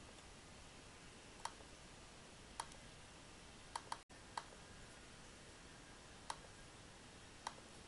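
Computer mouse clicking about seven times at uneven intervals, once as a quick double click near the middle, over a faint steady hiss.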